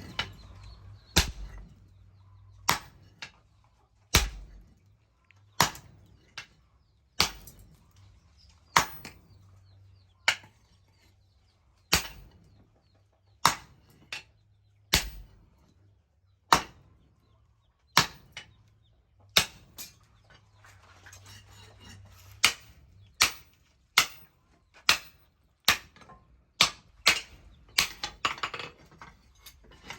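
Hand hammer striking leaf-spring steel on an anvil while forging a chisel: single sharp, ringing blows about every second and a half, some followed by a lighter tap. In the last third the blows come faster, one to two a second.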